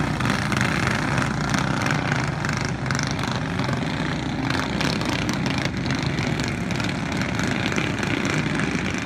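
Several go-karts with 5 hp Briggs & Stratton single-cylinder engines running at racing speed, a steady overlapping engine buzz.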